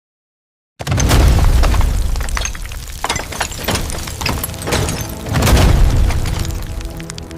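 Sudden loud boom about a second in, breaking into a deep rumble full of crackling and clattering, which swells again about five seconds in.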